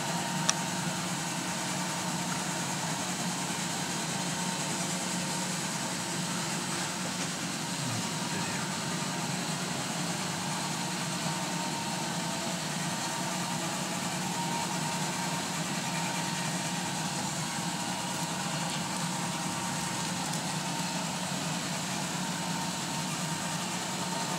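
A Roomba robot vacuum running: a steady motor hum and whir that holds unchanged throughout.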